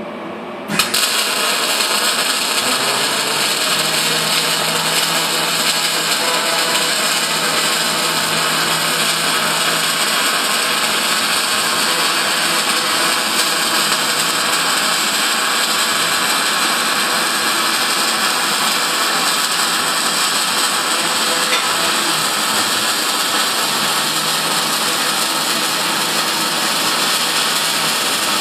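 Electric welding arc struck about a second in, then burning steadily with a loud, even hiss-and-crackle as one continuous bead is run around a steel bullet trap. An extractor fan hums underneath.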